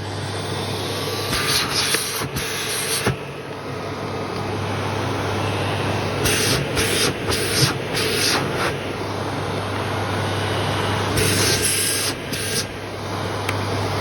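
Miele Cat and Dog Plus canister vacuum cleaner running, switched on at its lowest speed: a steady motor hum under a rush of suction air, growing slowly louder, with several short bursts of sharper, higher hiss.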